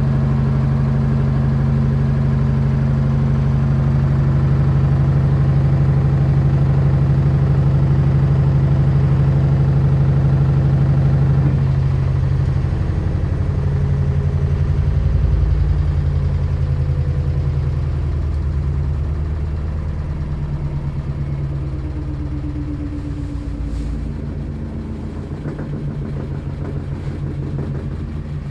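LG washing machine running with a loud, steady, low helicopter-like drone, a noise the owner wonders is normal. About twelve seconds in the tone changes, and over the last several seconds it grows gradually quieter.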